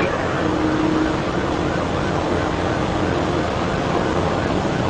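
Steady road, wind and engine noise inside a police patrol car running at about 120 mph, with a faint steady hum under it.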